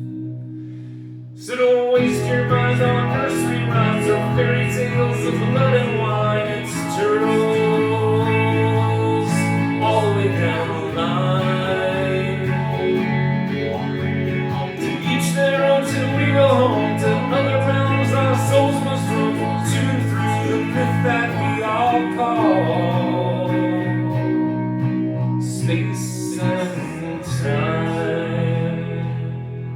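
Live band music with no sung words: a guitar-led instrumental passage with sustained chords. It swells up loudly about a second and a half in after a brief lull.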